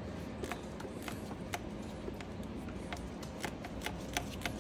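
Quarter-inch ratchet clicking in faint, irregular ticks as the bottom bolt of a BMW 750i's thermostat housing is worked loose.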